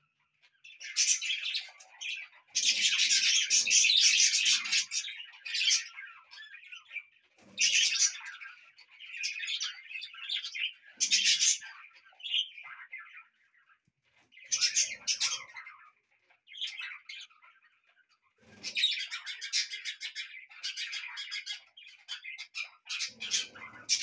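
A flock of budgerigars chirping and warbling in busy bursts with short pauses between, loudest a few seconds in.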